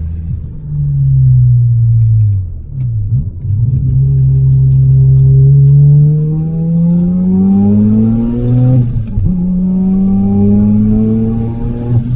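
Mazda RX-7's rotary engine under hard acceleration on track. Its note falls and dips in the first few seconds, then climbs steadily through a gear, drops sharply at a shift about nine seconds in, and climbs again. A high whine rises along with the revs.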